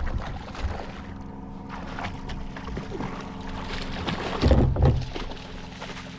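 Handling noises on a fishing kayak as a trout is dealt with aboard: irregular knocks, rustles and water sloshing, with a louder thump about four and a half seconds in, over a faint steady hum.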